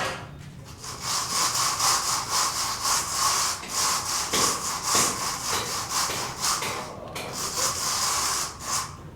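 Rhythmic back-and-forth rasping strokes of a hand tool on a hard surface, about two to three strokes a second, with a short pause near the end.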